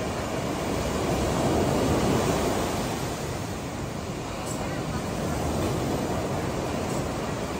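Ocean surf breaking and washing up onto a sandy beach: a steady rushing wash that swells about two seconds in, then eases off.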